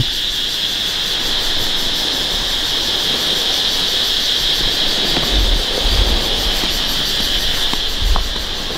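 Steady high-pitched insect chorus, a continuous even buzz, with a few low bumps about halfway through and near the end.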